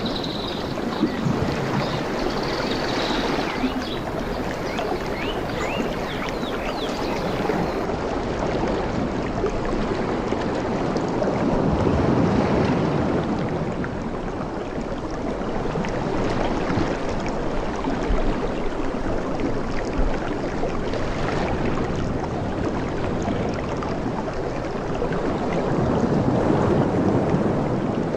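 Ocean waves washing ashore in a steady rush that swells twice, with a few high chirps near the start.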